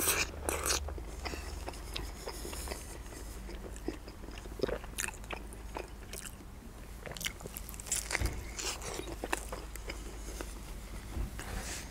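Close-miked chewing and biting of a double bacon cheeseburger: wet mouth sounds with irregular small clicks and crackles.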